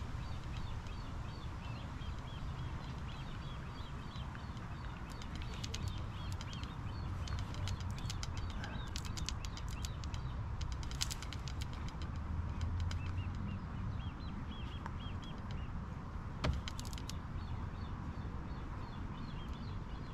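Small birds chirping over and over against a steady low rumble, with a few runs of faint clicking and one sharp knock near the end.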